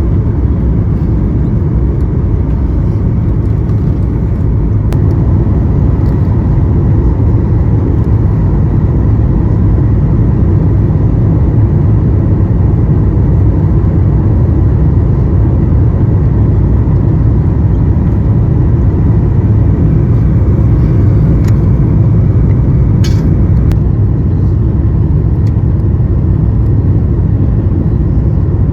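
Steady engine and airflow noise heard from inside the economy cabin of a Boeing 737-900ER, its CFM56-7B turbofans running, with a faint steady whine and a few brief clicks about two-thirds of the way through.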